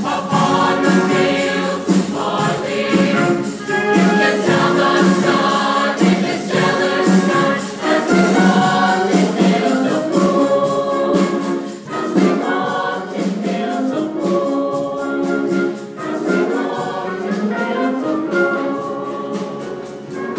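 A mixed show choir of male and female voices singing together.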